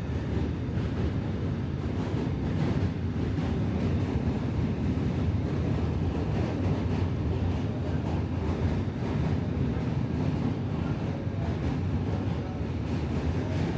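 Steady low rumble of a moving vehicle, loud and unbroken.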